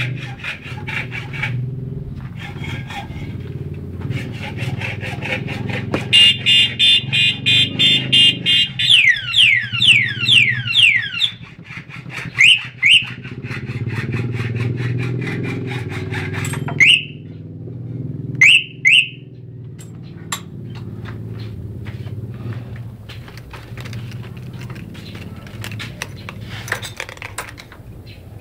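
Motorcycle anti-theft alarm on a Suzuki Thunder EN125 sounding over a low steady motorcycle engine hum. About six seconds in it gives a rapid high beeping for a few seconds, then a run of quick falling siren sweeps. After that come several short single chirps, some of them in pairs.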